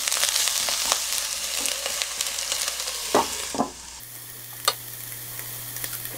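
Eggplant pieces sizzling in oil in a nonstick frying pan while a wooden spatula stirs them, with small scraping clicks. About three seconds in, two knocks come as a glass lid goes onto the pan, and after that the sizzle is quieter under the lid as the eggplant steam-fries over low heat.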